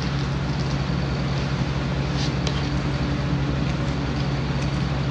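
A steady low mechanical hum at one constant pitch, unchanging throughout.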